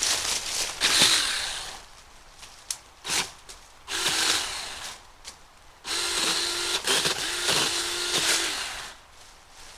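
Cordless 6-inch mini chainsaw running in several short bursts of a second or so as it cuts through privet brush, with clicks and crackles of brush between the bursts.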